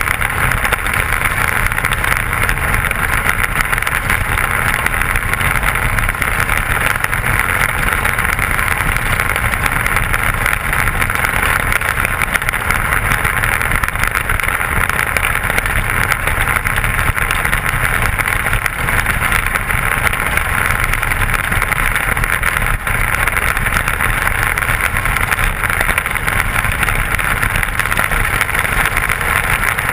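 Intermediate sprint car engine running steadily on a dirt oval, heard loud from the cockpit, with no big revs or lifts.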